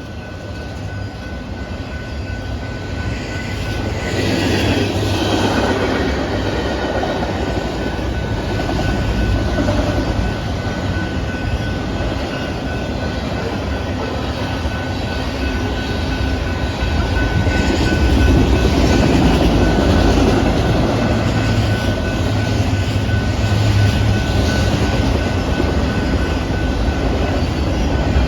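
Norfolk Southern manifest freight train rolling past close by: a steady heavy rumble of the cars on the rails that grows louder a few seconds in, with a thin steady high squeal running through it.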